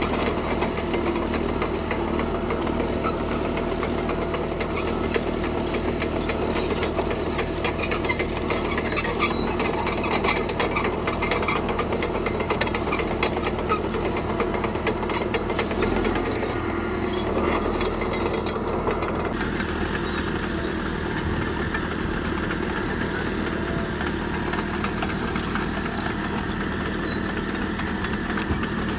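CAT D3K crawler bulldozer's diesel engine running steadily while pushing and spreading gravel, with scattered light clicks and clanks. The engine note changes about two-thirds of the way through.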